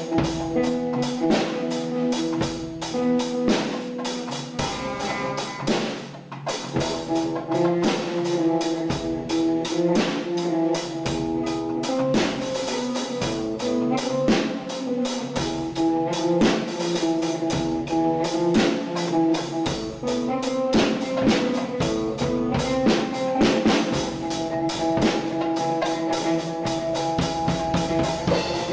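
Band music led by a busy drum kit, with held pitched notes running underneath.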